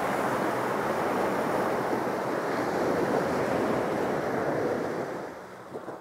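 Ocean surf washing steadily on a beach, fading out near the end.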